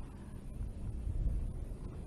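Low, uneven wind rumble on the microphone, with no distinct event standing out.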